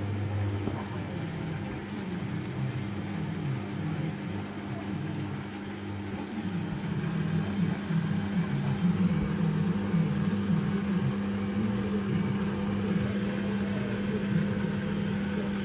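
Beko front-loading washing machine running mid-wash: a steady motor hum with foamy water and laundry sloshing in the turning drum, getting a little louder from about halfway through.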